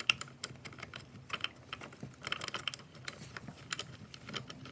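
Light, irregular metallic clicking and rattling from a Stihl MS 261 C-M chainsaw's chain and bar being handled and fitted by hand, as the chain tensioner is worked without catching.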